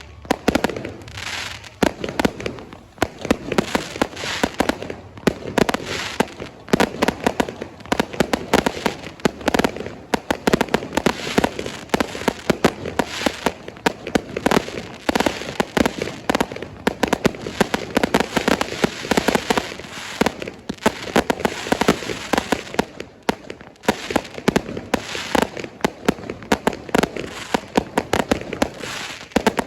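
Fireworks going off: a dense, continuous run of bangs and crackles, many per second, with no pause.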